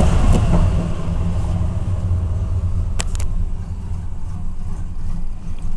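1990 Cadillac's carbureted V8 idling cold and a little unevenly just after the automatic choke comes off, the engine in need of a tune-up and close to stalling. A couple of sharp clicks about three seconds in.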